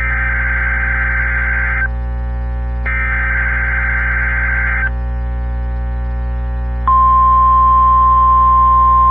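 NOAA Weather Radio SAME header: the last two of its three bursts of screeching digital data, each about two seconds long with a second's gap between them. About two seconds later the steady 1050 Hz warning alarm tone starts and holds, louder than the bursts. A low hum runs underneath throughout.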